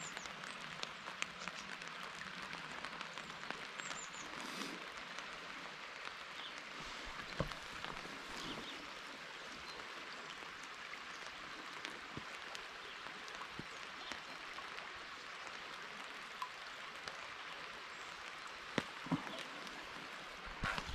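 Light rain falling as a steady hiss, with scattered sharper drop ticks and a couple of louder knocks.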